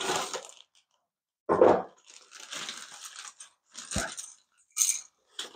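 Clear plastic bag crinkling and rustling as a plastic model-kit parts sprue is pulled out of it, in short bursts. About four seconds in there is one sharp knock as the sprue is put down on a wooden stool top.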